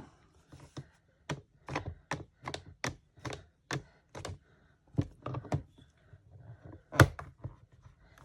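Stamping supplies being tapped and set down on a craft desk: a quick, uneven run of light taps and clicks, about two or three a second, with one sharper knock about seven seconds in.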